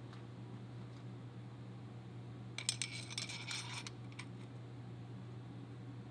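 A quick cluster of metallic clinks and rattles lasting about a second, starting a little over two and a half seconds in, then one more click: small steel SKS rifle parts being handled on a wooden workbench. A steady low hum runs underneath.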